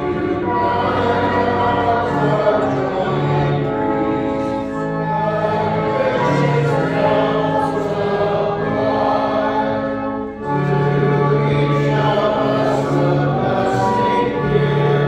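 Congregation singing a hymn over long-held accompaniment chords and a sustained bass line. The sound dips briefly about ten seconds in, then picks up again.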